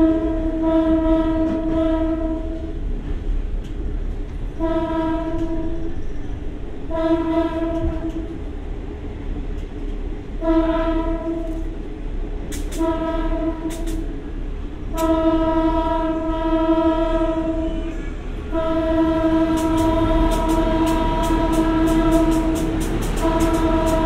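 A single-pitched train horn sounded again and again in long and short blasts, over the steady low running of an idling diesel railcar. A rapid high ticking joins in for the last few seconds.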